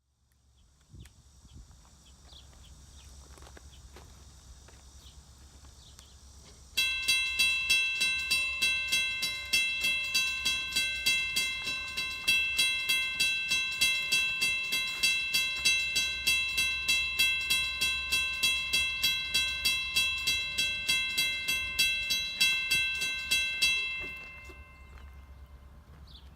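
Railroad crossing bell starting suddenly about seven seconds in and ringing in rapid, evenly spaced metallic strikes, each with a ringing tone that dies away. It stops a couple of seconds before the end, over a low steady hum.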